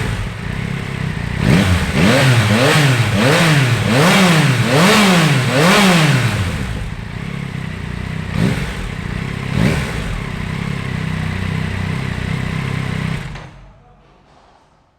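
Yamaha Tracer 9 GT's 890 cc inline three-cylinder engine being revved: a run of about six quick throttle blips, each rising and falling in pitch, then a steady idle with two short blips. The sound fades away near the end.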